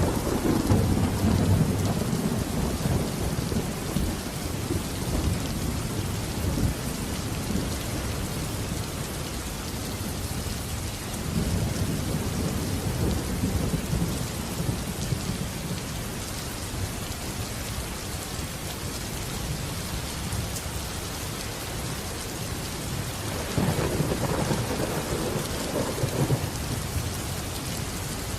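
Steady heavy rain with rolling thunder. One rumble is already rolling at the start and dies away over several seconds, a second swells up near the middle, and a third comes near the end.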